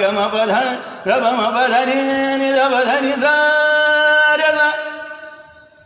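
A man's solo voice chanting a Sanskrit hymn to Shiva in long, ornamented notes, the pitch sliding up and down. About three seconds in it settles on one steady held note, which fades away near the end.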